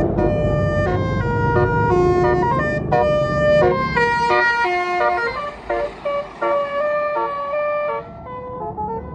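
Tourist bus's basuri 'telolet' multi-tone horn playing a tune of quick stepped notes over the bus's engine and road rumble. The rumble fades about four seconds in, and the notes grow fainter and choppier toward the end as the bus moves off.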